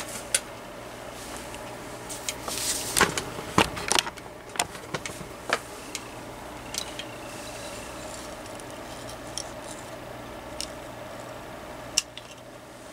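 Handling of a cordless phone base's circuit board, wires and power adapter: scattered small clicks and light knocks of plastic and wire, several close together about two to four seconds in and one sharp click near the end.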